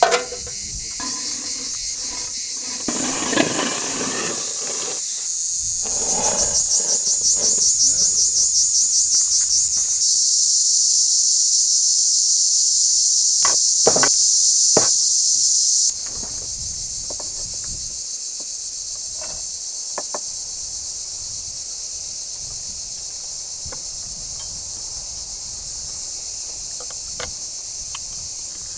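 Loud, high-pitched drone of cicadas, pulsing rapidly for a few seconds, then steadier and louder, and dropping back abruptly a little past halfway. A few sharp clicks sound in the middle.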